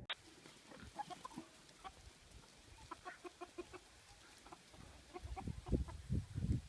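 Chickens clucking in many short, quick notes, with a few low thumps in the second half.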